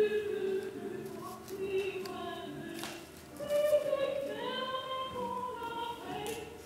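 Voices singing long, held notes that slide slowly in pitch, several pitches sounding together like a choir, with a short noise about three seconds in and another near the end.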